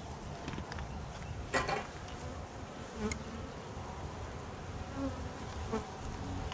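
Honeybees buzzing steadily around an opened nuc box, with a few short knocks as the wooden frames are handled.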